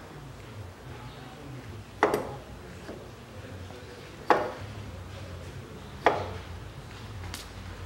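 Three sharp knocks about two seconds apart, with a fainter click near the end, as a new water pump is worked into its seat on the engine block of a Peugeot 407 1.8 during a timing belt replacement.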